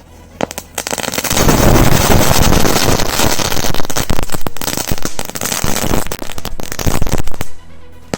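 Pyrotechnics going off in a bonfire: a dense, rapid run of loud cracks and pops that starts about half a second in, lasts about seven seconds and cuts off suddenly near the end.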